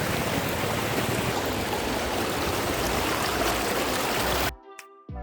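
Stream water rushing steadily. It cuts off suddenly about four and a half seconds in, and quieter music with held notes begins.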